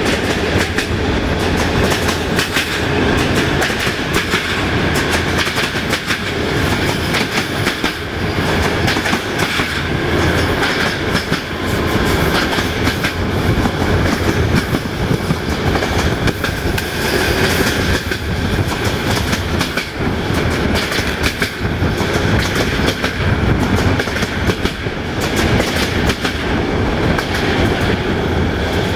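A passenger train running at speed, its coach wheels clattering over rail joints under a steady rolling rumble and rush of air, heard through an open carriage window.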